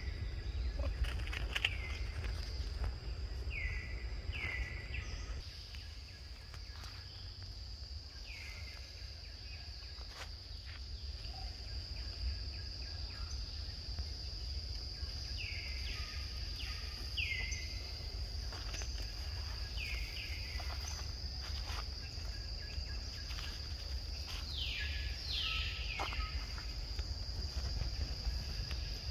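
Tree-canopy ambience: a steady high-pitched insect drone, with short falling bird calls repeating every few seconds, often two in quick succession, over a low rumble.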